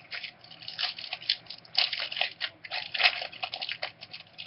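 A trading card pack wrapper being torn open and crinkled in the hands, a run of irregular crackles and rustles.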